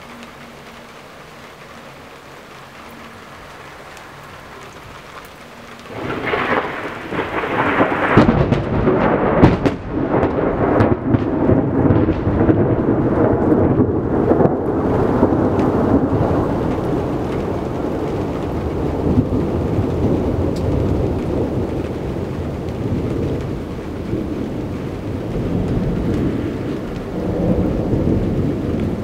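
Steady rain, then about six seconds in the thunderclap of a close positive lightning strike, about 600 m away: a sharp crackling crash, then a very loud rolling rumble. It is loudest a few seconds after the onset, slowly fades over the next twenty seconds and swells again near the end.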